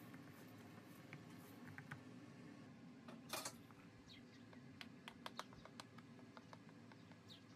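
Faint, quick clicks of a metal fork pricking bread dough in a round metal pan, with a short louder scrape about three seconds in.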